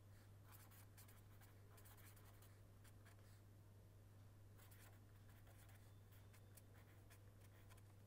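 Faint scratching of a pen writing on paper in short strokes, over a steady low hum.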